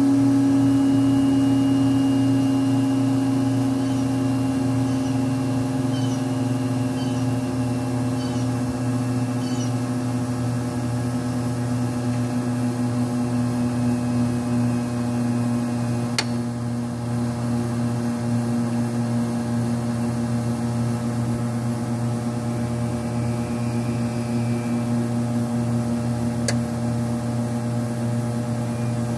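Beckman J2-21 refrigerated centrifuge spinning its rotor, a steady machine hum with a strong tone that slowly drops in pitch as the rotor slows from about 17,500 to about 14,500 rpm. Two sharp clicks sound, about midway and near the end.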